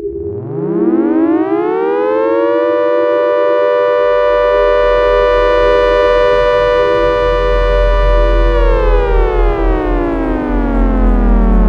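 Designed sci-fi sound effect of a Martian tripod's horn call: a loud, siren-like tone that rises in pitch over about two seconds, holds steady for about six, then slides slowly downward. A steady lower drone runs beneath it, joined by a deep rumble about four seconds in.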